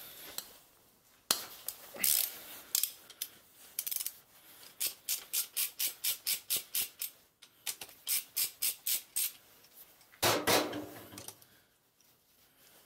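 Socket ratchet clicking in quick, even strokes, about four a second, as the connecting rod cap bolts of a Kohler K301 engine are backed out, the footage sped up. A louder, longer sound comes about ten seconds in.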